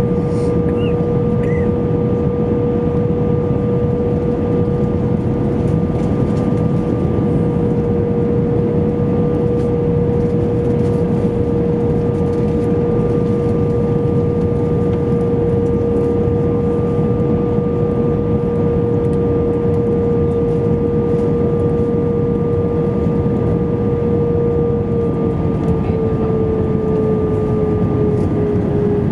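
Airbus A320 cabin noise on final approach: a steady roar of engines and rushing air with a steady whine over it. Over the last few seconds the whine dips slightly in pitch as the engines spool down.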